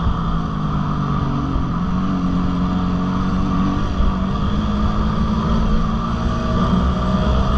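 Dirt bike engine running under way at fairly steady revs, its pitch shifting a few times, with wind rumbling on the microphone.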